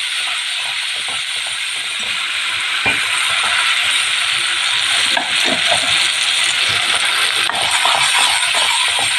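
Tomato-onion masala paste sizzling in hot oil in a stainless steel kadai, with a steady hiss, while a spatula stirs it and now and then scrapes and clicks against the pan.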